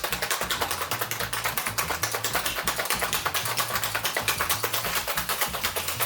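Cocktail shaker being shaken hard, cubed ice rattling against the tin in a rapid, even rhythm as the drink is chilled, over background music.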